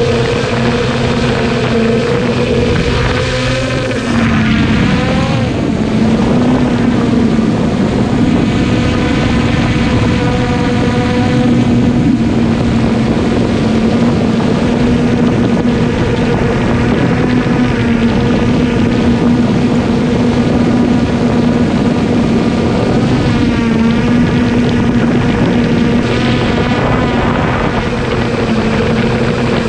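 Traxxas Aton quadcopter's electric motors and propellers whining steadily, heard close up from the drone's own camera, with the pitch wavering briefly a few times as the drone changes speed.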